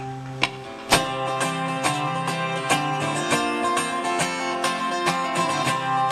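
Live country music played on a strummed acoustic guitar, which settles into a steady rhythm about a second in.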